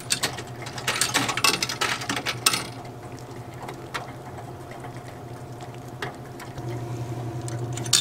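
Coins rattling and clicking through an old Coke vending machine's coin mechanism, falling straight through to the coin return instead of being accepted, with button clicks. A dense run of rattling comes about a second in, and a single click about four seconds in, over a steady low mechanical hum.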